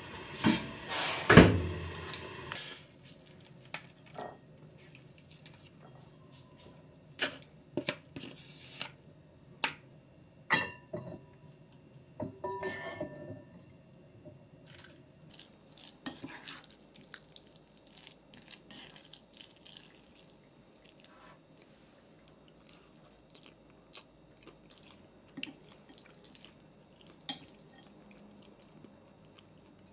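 Scattered knocks and clinks of ceramic bowls, a plastic container and a spoon being handled on a stone kitchen counter. A louder noisy stretch with two sharp knocks fills the first couple of seconds; the clicks thin out in the second half.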